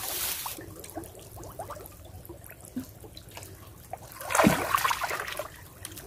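Shallow muddy water splashing and trickling as someone wades through it and works her hands in it. The splashing grows louder for a moment about four seconds in.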